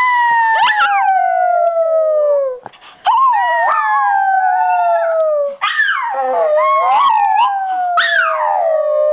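A woman and her dog howling together: three long howled notes, each sliding slowly down in pitch, with the dog's higher, wavering howls and yelps overlapping them.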